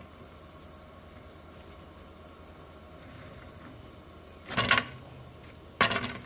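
Two short clattering knocks about a second apart near the end, as a toasted bun is taken off a toaster oven's wire rack onto a plastic plate, over a steady low background hum.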